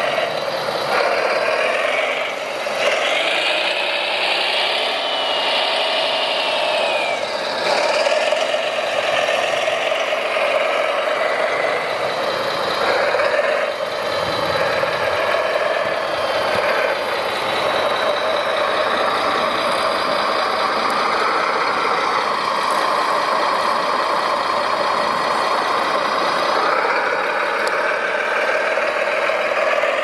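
Radio-controlled scale model Volvo L250G wheel loader at work: a steady mechanical whine from its drive and hydraulics, the pitch gliding up and down as it moves and works the bucket, with gravel spilling from the bucket.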